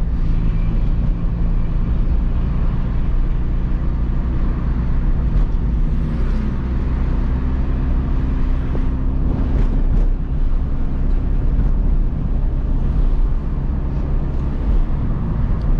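Peugeot 206 1.4 four-cylinder petrol engine with a straight-pipe exhaust, driving at a steady pace: an even, continuous engine drone without marked revving.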